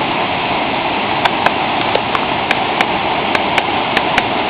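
Waterfall rushing steadily, with sharp, irregular clicks over it several times a second.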